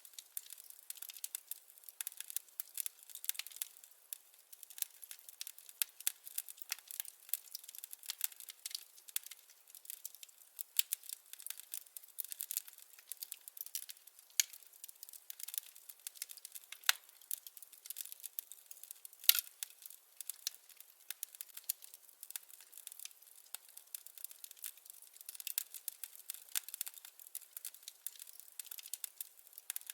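Wood fire crackling: a continuous, irregular stream of small crisp snaps and pops, with no low rumble, and a couple of louder pops a little past the middle.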